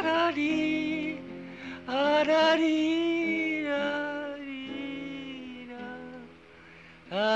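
Music: a voice sings long, wavering held notes over steady sustained accompaniment. The melody fades away about six seconds in and comes back right at the end.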